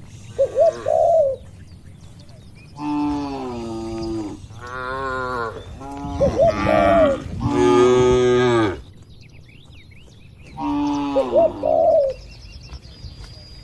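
Cattle mooing, a run of long drawn-out moos from about three to nine seconds in and another near the end. Short, higher cooing calls, likely a dove, come in between.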